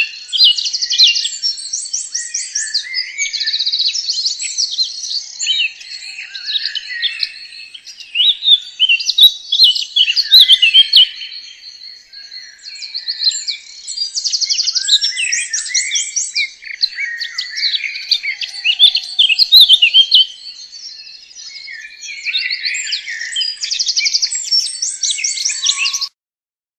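Birdsong: a long, continuous run of varied chirps and rapid trills that stops abruptly near the end.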